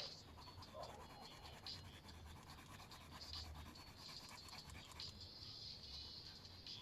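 Faint scratching of colouring strokes on paper, short strokes coming and going, with a denser run of strokes near the end.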